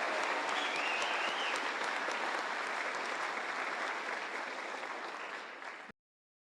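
Theatre audience applauding, a dense steady clapping that slowly fades and then cuts off abruptly about six seconds in.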